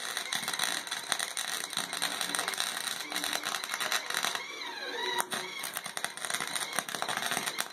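Small Harbor Freight welder's electric arc crackling and sputtering irregularly as a bead is run on steel plate.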